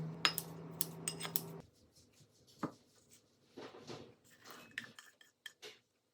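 Kitchen utensils and dishes clinking: several sharp clinks in the first second and a half over a steady low hum that cuts off suddenly, then scattered soft clicks and handling sounds.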